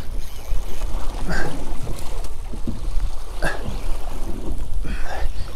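Wind rumbling on the microphone of a small drifting boat, with water splashing against the hull in three short bursts.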